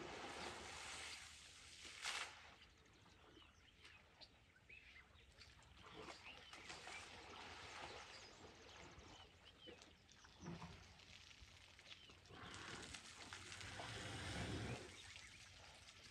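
Faint outdoor ambience with scattered short bird calls, a sharp click about two seconds in, and a louder rush of noise for a couple of seconds near the end.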